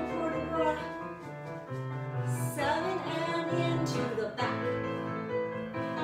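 Piano music for a ballet barre exercise, with a singing voice carrying the melody.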